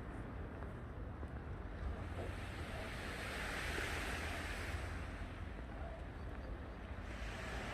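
Sea waves washing in, one wave swelling to a hiss in the middle and fading away, over a steady low rumble of wind on the microphone.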